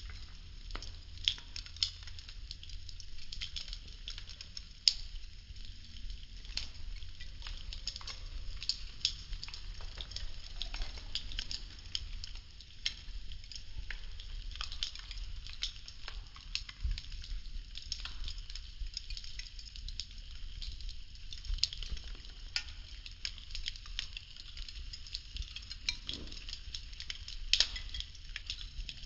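Burning popsicle-stick wood crackling steadily with many fine ticks and an occasional sharper pop, over a low steady rumble.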